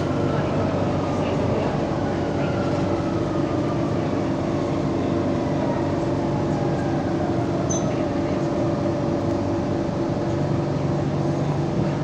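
Metro train running on the rails with a steady rumble, and a motor whine that falls slowly in pitch as the train slows for a station.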